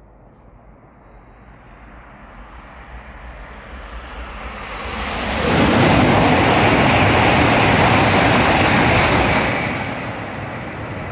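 E5 series Shinkansen passing through a station at high speed without stopping. The rushing noise grows over about five seconds, is loud for about four seconds as the train goes by, then falls away to a lower rush.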